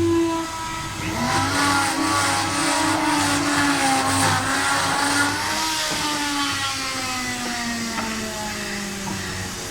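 A motor-driven machine running with a steady hum. Its pitch drops about a second in and then sinks slowly through the rest of the stretch, over a noisy background.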